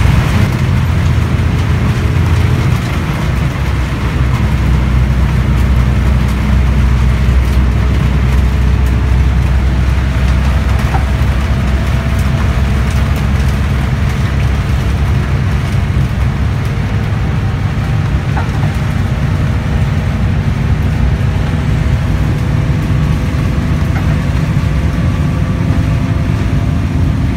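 Interior of a coach bus cruising on a rain-soaked highway: a steady low engine drone under a constant hiss of road and rain noise.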